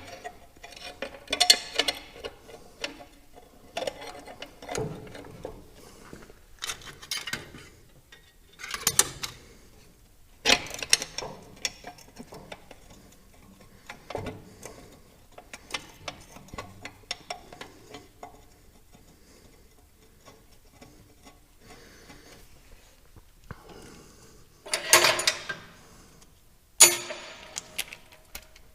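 Hand tools and metal parts clinking and clattering in irregular bursts, as lines and a battery tray are refitted on a tractor. There is a longer, louder clatter about 25 seconds in and a sharp knock shortly after.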